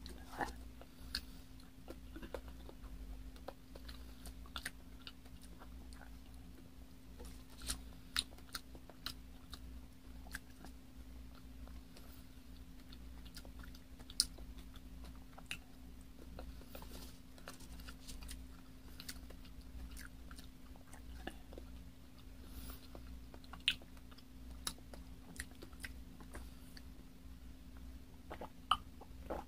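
Close-miked chewing of soft kiwi fruit: scattered wet mouth clicks and smacks over a faint steady hum, with a sip from a glass of water near the end.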